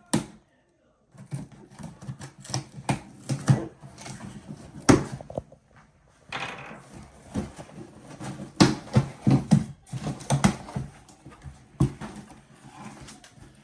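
A shipping package being opened by hand without a knife: irregular clicks, knocks and rustles of packaging being handled and torn, with a brief break about a second in.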